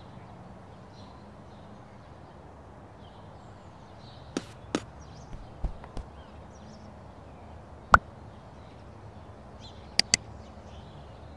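Scattered sharp clicks and knocks over a faint steady hiss: two quick pairs about four to six seconds in, the loudest single knock about eight seconds in, and a quick double click near the end.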